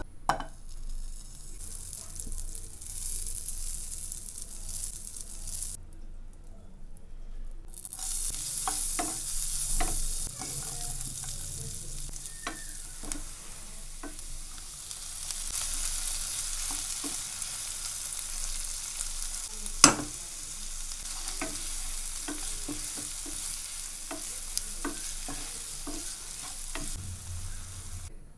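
Sliced onions and green chillies frying in butter in a nonstick pan, a steady sizzle with small clicks and taps as they are stirred, and one sharp knock about two-thirds of the way through. The sizzle drops out for about two seconds near the start.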